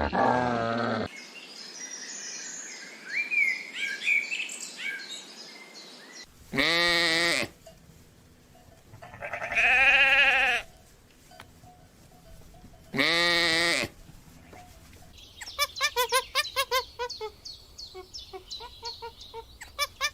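Three long bleats, each about a second, with a quavering pitch, from a bleating farm animal; faint high chirps come before them and a quick run of short pulsed calls near the end.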